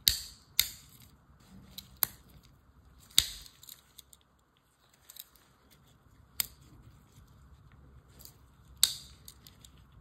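The tools of a red Victorinox Tinker Swiss Army knife are folded and unfolded by hand, giving a series of about seven sharp metallic clicks at irregular intervals. The blades and openers snap against their backsprings, and the loudest snaps come at the start, a little after three seconds, and near the end.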